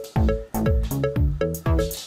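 Electronic dance music with a steady kick-drum beat and repeating synth notes.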